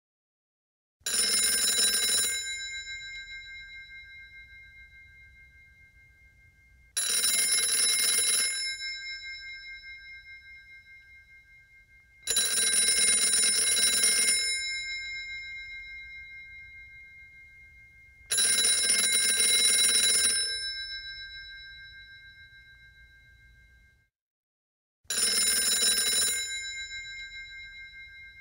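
Classic telephone's mechanical bell ringing five times. Each ring is a rapid clatter of a second or two whose bell tones ring on and fade away over several seconds before the next ring starts.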